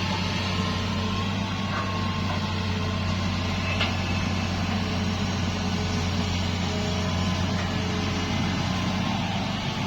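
Heavy diesel engine of construction machinery running steadily at an even speed, with a brief faint squeak about four seconds in.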